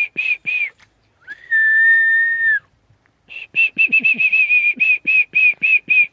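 A person whistling: a quick run of short, slightly falling notes, about five a second, then one long steady note lasting about a second and a half, then another quick run of short notes.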